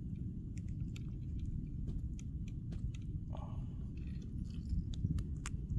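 Steady low rumble on the microphone with scattered small clicks and crackles as the catch and a plastic bag are handled, and a short faint tone about three seconds in.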